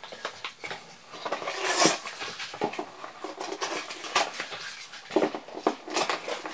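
Glued cardboard false bottom of a box being torn out by hand: a string of short rips and crackles of tearing board and paper.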